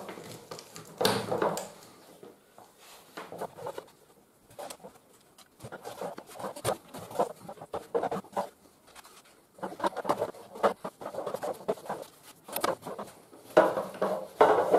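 Metal poles of a folding camping cot knocking and clicking at irregular moments as the cross-shaped leg frames are bent down under body weight and snapped into place against the side poles. The sharpest knocks come about a second in, around ten seconds in and near the end.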